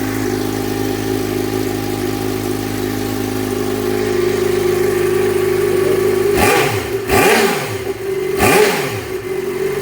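Yamaha XJ6's inline-four engine idling steadily, then revved with three quick throttle blips in the last few seconds. Its exhaust sounds stock and quiet, 'sem barulho', because the hole cut in the original muffler is closed with a threaded plug.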